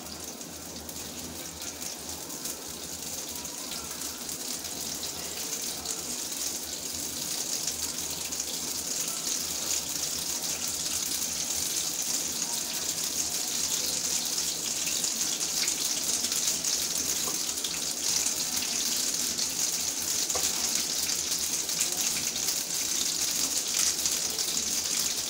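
Hot oil sizzling in a frying pan on a high gas flame, a steady hiss that slowly grows louder as spices are added.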